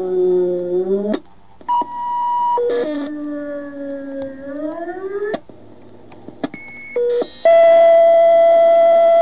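Fire dispatch radio audio: two long, wavering howls that sag in pitch and rise again at the end, with short beeps between them. A loud, steady alert tone comes in about three quarters of the way through.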